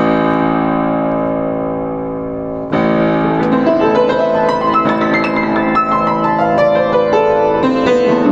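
Yamaha JU109 upright piano being played: a chord rings and slowly fades for nearly three seconds, then a new chord is struck and a quick flowing run of notes follows.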